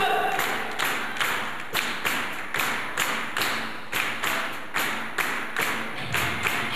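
Rhythmic hand clapping, a steady beat of about three claps a second.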